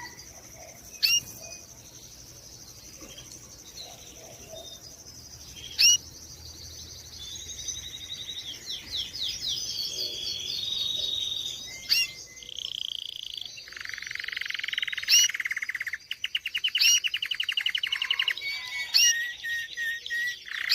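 Domestic canary singing: a long song of rapid trills and rolling repeated notes, broken every few seconds by loud, sharp, upward-hooked call notes.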